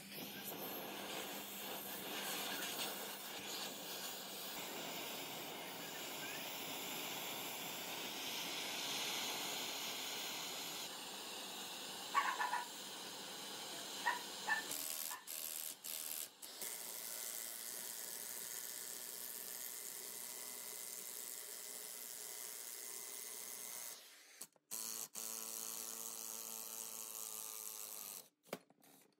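Oxy-fuel gas torch hissing steadily as it heats a V-belt pulley on an electric motor shaft, with a few sharp metallic clicks midway. Near the end a cordless impact wrench whines in short spells, turning the screw of a three-jaw gear puller to draw the heated pulley off the shaft.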